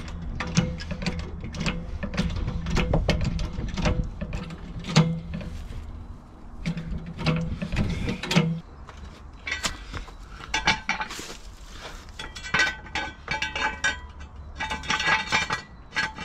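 Hydraulic trolley jack being pumped by its long handle, with a regular run of clicks and creaks for about the first eight seconds. After that, metal clinks and rattles as a steel axle stand is set under the car.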